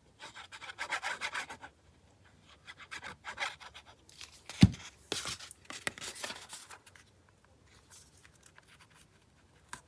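Quick back-and-forth rubbing strokes on paper, in three short bursts, with a single thump on the work table partway through.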